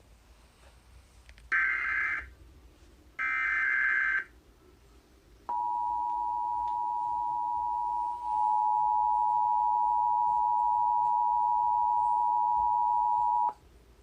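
Emergency Alert System alert opening: two short bursts of screechy SAME digital header data about a second apart. Then the EAS two-tone attention signal, a steady dual tone that steps up in loudness about a third of the way through and cuts off abruptly after about eight seconds, announcing a severe thunderstorm warning.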